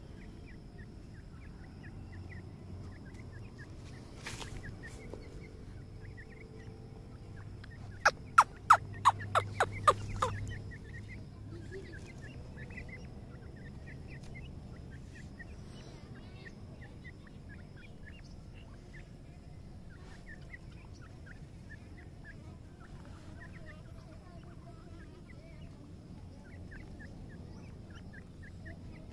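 Francolin chicks calling with soft, short high chirps that repeat all through as they forage. About eight seconds in comes a quick run of about seven loud, sharp clicks over two seconds.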